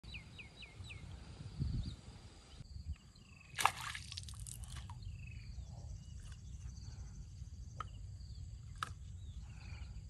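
Outdoor nature ambience: a steady low rumble with short chirping calls, including four quick falling chirps in the first second. The background changes abruptly a little under three seconds in, and a brief loud noise stands out about three and a half seconds in.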